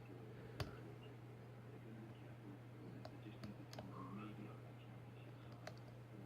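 Small, sharp metallic clicks from a shallow hook pick working the pins of an Abus half-euro cylinder lock during single-pin picking: one louder click about half a second in, three more a little past the middle and one near the end, over a faint steady hum.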